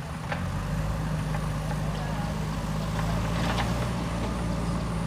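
Heavy diesel engine of construction machinery running steadily, picking up slightly about half a second in, with a few short metallic knocks, one near the start and a cluster about three and a half seconds in.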